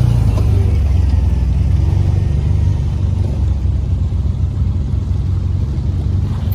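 Side-by-side UTV engines running, a loud, steady low rumble from a machine close by, with a second side-by-side driving through a mud hole.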